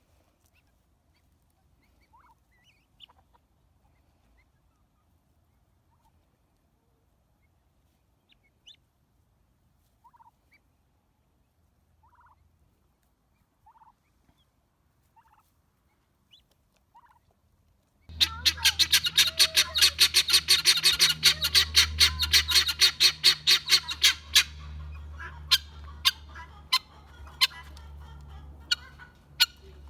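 Domestic guineafowl calling: faint short calls repeated every second or two. About eighteen seconds in, a loud, rapid, harsh chatter of calls sets in, about six a second, for some six seconds, then breaks into scattered single calls.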